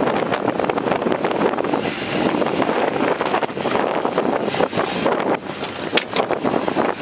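Wind buffeting the microphone, a loud, uneven rushing noise, with two brief clicks about six seconds in.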